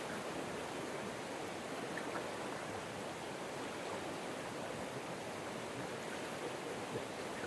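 River water flowing, a steady rushing sound.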